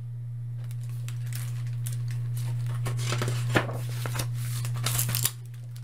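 Pages of a hardcover picture book being turned by hand: paper rustling and flapping, with a sharp page snap about halfway through. A steady low hum runs underneath and cuts off near the end.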